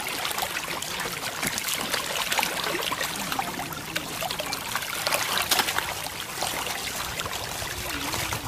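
Water splashing and churning as a packed mass of catfish thrashes at the surface in a feeding frenzy over thrown food. It is a continuous wash made up of many small, quick splashes.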